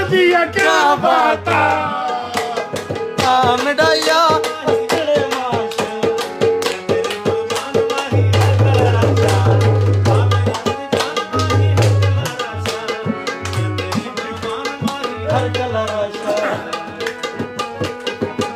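Live tabla playing a fast, dense rhythm under music with a held drone note and a wavering melody line. Deep bass strokes on the larger drum come in about eight seconds in.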